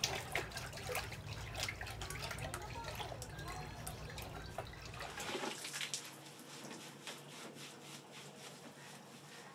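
Cow drinking from a plastic bucket: irregular slurping, slopping and dripping of water, busiest for the first five seconds and fainter after that.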